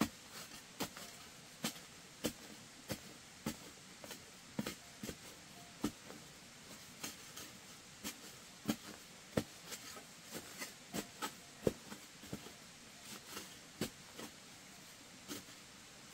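Irregular sharp knocks and taps, two or three a second and uneven in strength, over a faint steady hiss.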